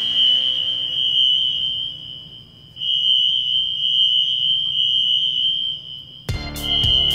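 Fire alarm notification sounder giving a steady, high-pitched tone, which dips briefly about two and a half seconds in: the alarm signal after a flame detector has tripped the system.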